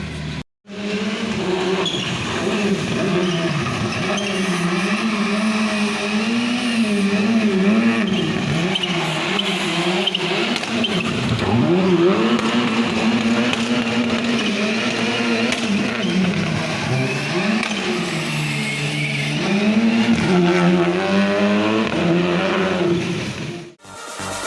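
Rally car engine running hard, its note rising and falling again and again as the revs go up and down. A brief gap of silence comes about half a second in.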